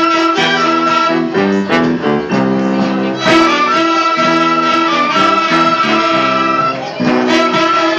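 Student orchestra of violins and flutes playing a piece: held high melody notes over a lower part that changes note in a steady rhythm.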